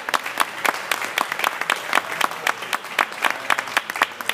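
Audience applauding, with sharp individual claps standing out at about four or five a second.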